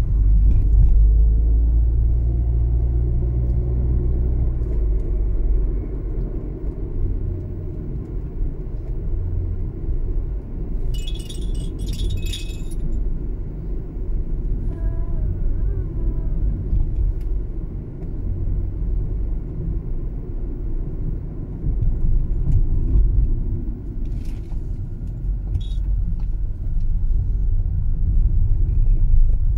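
Car driving at low speed, a steady low rumble of engine and road noise heard from inside the cabin. About eleven seconds in, a brief high rattle lasts about a second and a half.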